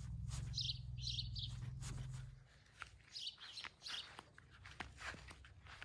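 Small birds chirping in short repeated phrases. A low steady rumble runs underneath and stops about two and a half seconds in, with scattered faint ticks.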